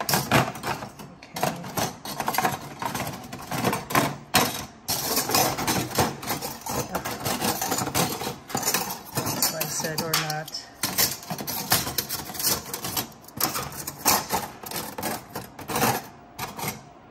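Stainless steel cookie cutters, round cutter rings and a dumpling press clinking and rattling against each other and against plastic organizer trays in a wire-mesh drawer as they are moved around by hand. The clicks and knocks come quick and irregular throughout.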